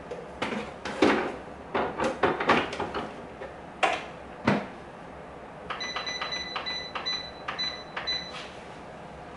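Metal bread machine baking pan being knocked into place in the machine with a series of clunks, followed by a quick run of about a dozen short electronic beeps from the bread machine's control buttons as the cycle is set.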